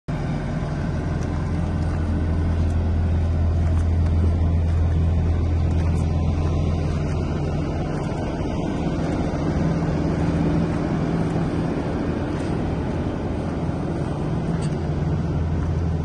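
2017 Volvo P6870C asphalt paver's diesel engine idling steadily.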